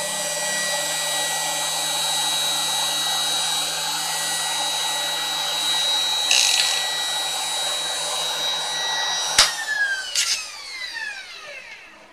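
Router spindle on a CNC router running at high speed, a steady high whine, as a small carbide end mill takes the last of a pocket in mild steel. About nine seconds in there is a sharp click and the motor winds down, its whine falling in pitch as the cut is finished.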